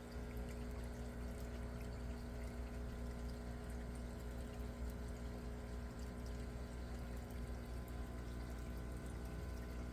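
Water pouring and splashing steadily into an aquaponics tank, over a constant low hum.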